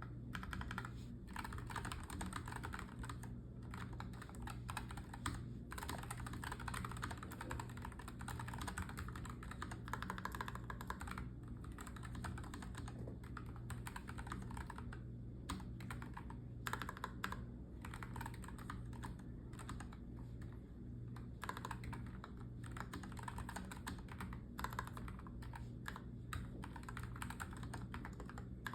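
NuPhy Air75 mechanical keyboard with Gateron Red linear switches being typed on in fast, continuous runs of keystrokes, broken by brief pauses.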